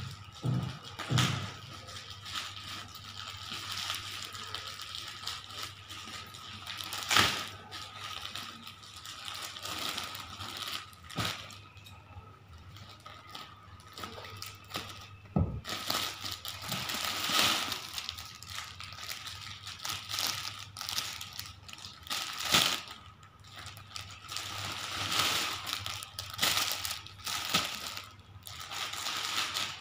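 Plastic packaging crinkling and rustling as a white plastic courier mailer is cut open with scissors and cellophane-wrapped garments are handled, with a few sharp knocks against the table.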